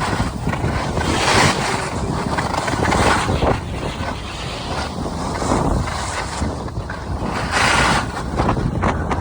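Wind buffeting the microphone of a camera skiing downhill, with skis scraping and hissing over the snow in several swells, the loudest about a second in and near the end.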